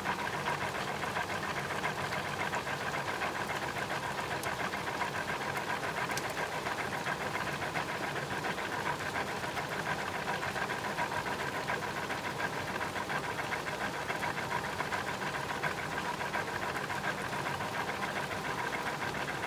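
Washing machine's belt and pulley wheel mechanism running, recorded close: a fast, even mechanical rattle over a steady whine, unchanging throughout.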